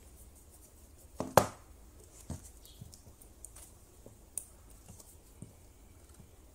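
Handling noise at a workbench: a sharp knock about a second and a half in, then scattered light clicks and taps as a metal strip is held on a battery cell and a spot welder's pen cable is handled.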